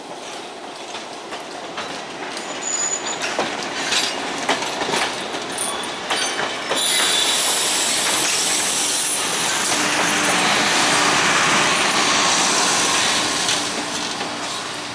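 Diesel-hauled passenger excursion train behind an EMD GP9 locomotive passing close by. Its wheels click over the rail joints at first, then the rush of the passing train grows loud about seven seconds in, with brief high wheel squeals. The sound fades toward the end.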